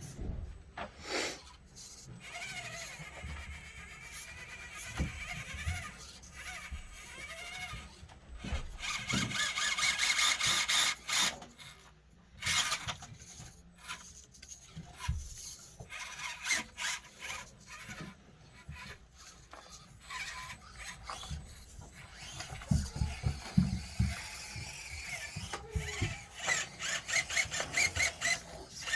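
Axial SCX24 mini RC crawler's small electric motor and gears whining in short bursts, with stretches of rapid clicking from the drivetrain. The driver blames a busted dog bone for the trouble.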